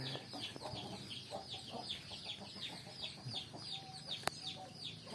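Chickens calling: a rapid run of high, falling peeps, about four a second, with fainter lower clucking. A single sharp click comes about four seconds in.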